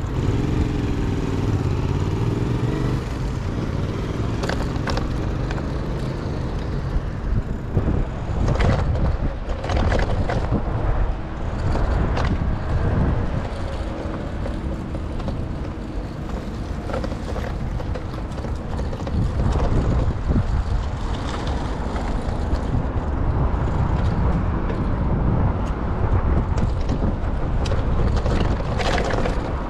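City street traffic heard from a bicycle: motor vehicles running and passing over a steady low rumble, with scattered clicks and rattles. An engine's pitch rises and falls in the first few seconds.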